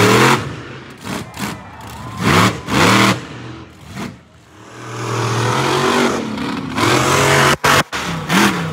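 Monster truck engine revving hard in short bursts, its pitch rising and falling, then held at high revs for about two and a half seconds before cutting out sharply twice near the end.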